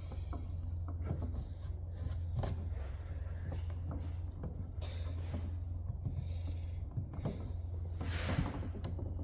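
Hand work on a wooden workpiece: a few scraping strokes and light knocks over a steady low hum.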